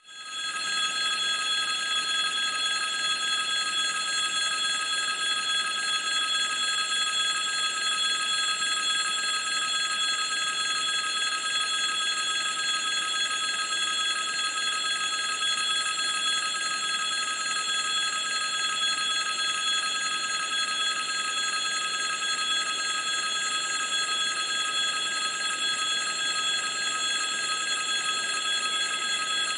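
Electric bell of a railway level-crossing signal ringing continuously at an even level, the warning that a train is approaching.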